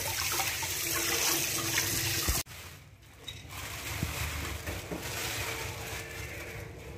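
Tap water running into a steel sink and splashing over hands being washed, cut off suddenly a little over two seconds in. A much quieter low hum follows.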